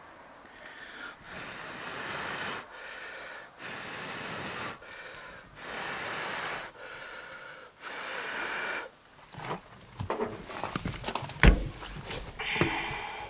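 A person blowing repeatedly on the smouldering tip of a rag torch to fan it into flame, about six long puffs in a row. Then handling clatter with sharp knocks, one loud knock near the end.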